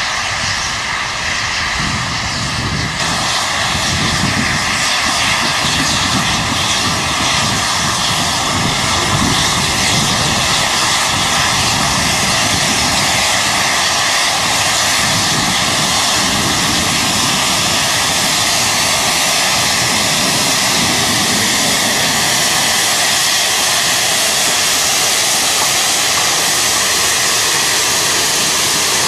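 Steady, loud mix of a vintage biplane's piston engine running and a steam locomotive passing close by, building up over the first few seconds.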